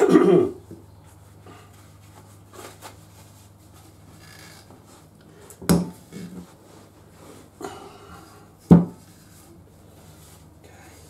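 Metal front-fork parts being handled and set down on a workbench: a clatter at the start, then two sharp knocks about six and nine seconds in, with small taps and light rubbing between.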